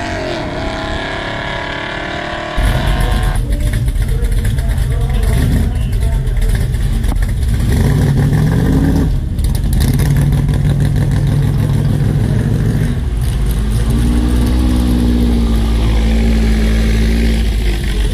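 A car engine at a drag strip comes in suddenly and loud about two and a half seconds in, running hard with a deep rumble. There is a brief dip just after nine seconds, and the pitch rises again near the end.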